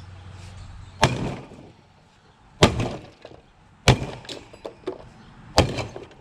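Splitting maul striking the compressor mounts of a scrap mini fridge: four heavy whacks roughly a second and a half apart, with smaller knocks and rattles in between, knocking the sealed-unit compressor loose from its mounts.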